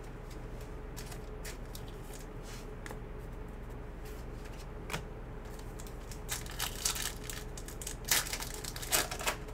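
Foil trading-card pack of 2018 Donruss Elite Football being torn open and crinkled in the hands, a run of sharp crinkling noises from about six seconds in, loudest near the end. Before that come soft rustles of a card being slid into a plastic sleeve.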